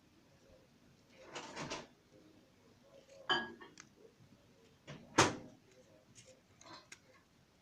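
Trading cards and a foil booster pack being handled: a few short rustles and swishes, the loudest about five seconds in.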